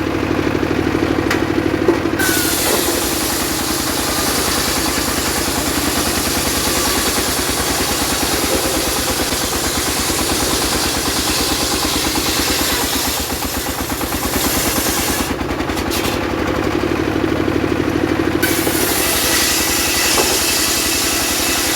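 Engine-driven mobile circular saw running steadily, its engine pulsing evenly, while the blade cuts sengon wood with a high hiss. The cutting hiss drops away for a couple of seconds at the start and again for a few seconds past the middle, leaving the engine alone.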